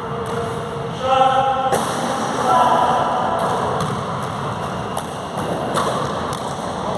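Voices singing, with held notes about a second in and again near three seconds.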